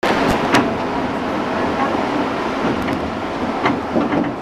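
Steady running noise heard from inside a moving public-transport vehicle, with a few sharp clicks and rattles.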